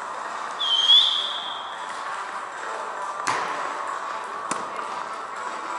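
Sneaker squeaking on the gym's hardwood floor: one high squeal of about a second, near the start. Two sharp slaps of a volleyball being hit follow about three and four and a half seconds in, echoing in the large hall.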